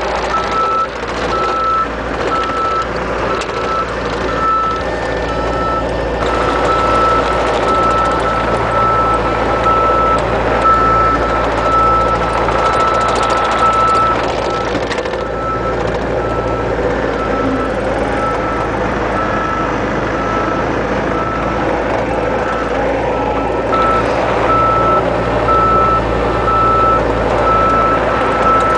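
A back-up alarm beeps steadily, about once a second, over the steady running of a Bobcat mini excavator's diesel engine and hydraulics.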